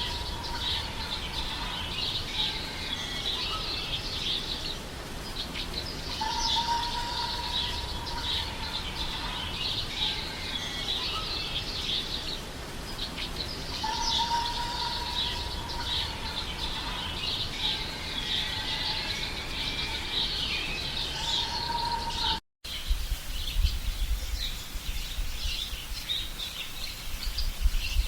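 Birdsong ambience: many birds chirping, with a steady whistled note that comes back about every seven seconds. About 22 seconds in, the sound briefly cuts out, then resumes with more low rumble.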